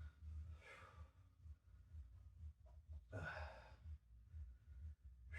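A man breathing out in faint, long sighing exhalations while catching his breath between exercise sets, two of them about half a second and three seconds in, over a low steady hum.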